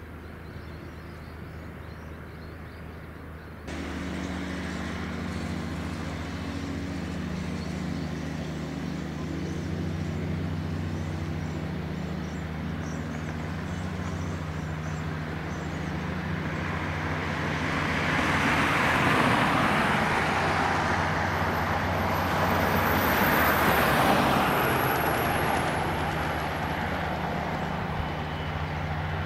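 Jet airliner engines at takeoff power: a steady engine hum that jumps up suddenly about four seconds in, then swells to its loudest between about 18 and 25 seconds in, with a thin high whine that falls slightly near the end.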